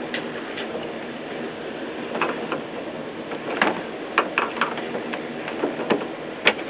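Irregular clicks and light knocks of plastic clips and metal parts being worked by hand inside a 2001 Toyota Camry's door as the door handle is freed, with a sharper click near the end.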